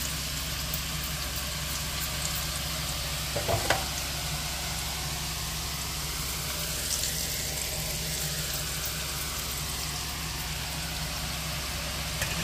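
Boondi batter dripping from a perforated ladle into hot oil in a steel kadai, the oil sizzling steadily as the droplets fry. A brief clink of the spoon tapping the ladle comes about three and a half seconds in.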